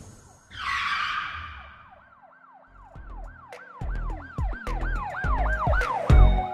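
Intro sound effects for a channel logo: a whoosh about half a second in, then a run of short siren-like pitch sweeps, each rising and falling, about three a second over low pulses, ending in a heavy bass hit near the end.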